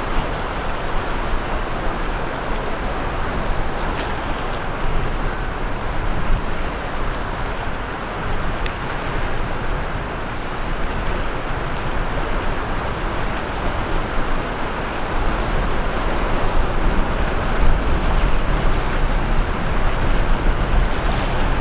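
Sea surf washing onto the beach in a continuous wash, with wind buffeting the microphone as a low rumble that grows heavier in the second half.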